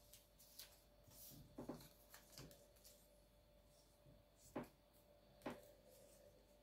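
Near silence: quiet room tone with a few faint, scattered clicks and taps.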